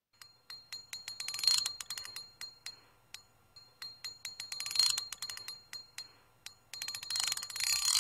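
Three bursts of rapid ratcheting clicks with a thin metallic ring, each swelling and then fading; near the end the clicking runs into a louder rushing noise.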